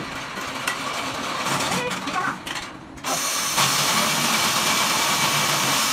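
Electric automatic wall-plastering machines running on their masts: a steady mechanical noise that sets in abruptly about three seconds in.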